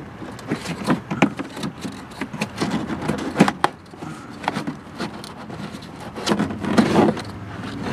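A cabin air filter being worked out of its plastic housing by hand: irregular clicks, knocks and scraping of the filter frame against plastic, with a longer stretch of scraping near the end.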